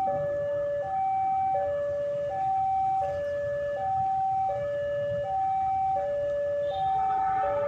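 Railway level-crossing warning alarm sounding, an electronic two-tone signal alternating high and low about every three-quarters of a second to warn of an approaching train. Near the end a second two-tone alarm, slightly different in pitch, joins in out of step with the first.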